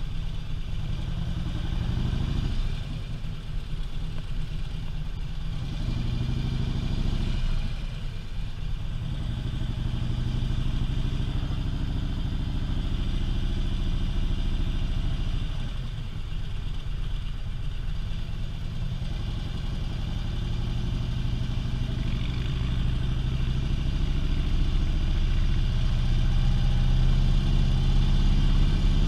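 Harley-Davidson touring motorcycle's V-twin engine running at road speed, the rider's own bike. Its low, even rumble drops off briefly three times as the throttle eases, then builds louder near the end.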